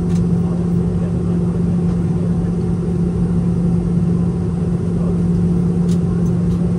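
Steady cabin drone inside a Boeing 717 with its Rolls-Royce BR715 turbofans running: an even rush of noise over a strong steady low hum, with a couple of faint clicks near the end.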